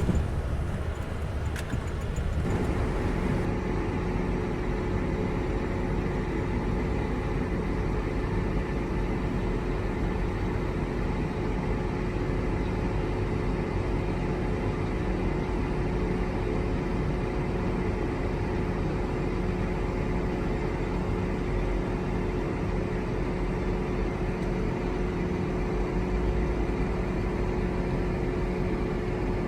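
Heavy farm machinery running steadily, a continuous engine drone with a steady hum over it that sets in about two seconds in.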